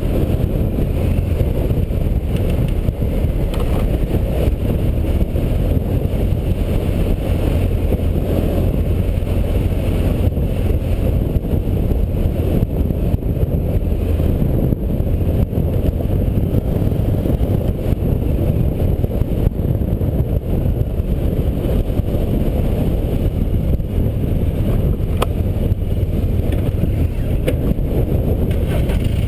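Off-road vehicle engine running steadily under way along a dirt trail, mixed with wind noise on the microphone.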